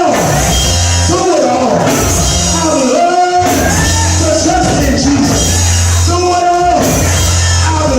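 Loud recorded music with a singing voice over a pulsing bass line and drums.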